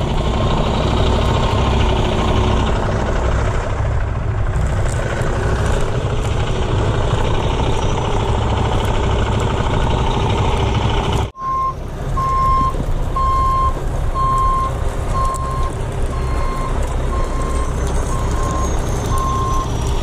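Heavy Kenworth rotator tow truck's diesel engine running as it crawls over rough ground. About halfway through, after a cut, its backup alarm starts beeping steadily, about one beep a second, over the engine.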